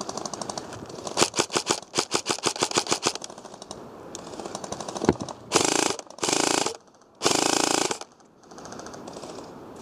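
Airsoft electric gun (custom M4 AEG) firing: a fast string of sharp snapping shots about a second in, then three short full-auto bursts in quick succession past the middle, the last one the longest.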